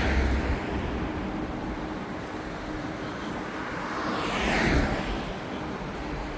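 Car road noise while driving: a steady rush of tyres and wind with a faint hum, and a whoosh that swells and fades about four to five seconds in.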